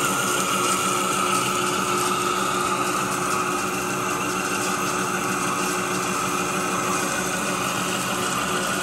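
Monarch engine lathe taking a heavy roughing cut in 1045 steel with an LNMX carbide insert under flood coolant: the machine running steadily with a constant gear hum and the noise of the cut and spraying coolant.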